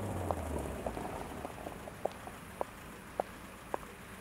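A woman's footsteps clicking on the pavement at an even walking pace, a step about every half second. A low car engine sound falls in pitch and fades in the first second.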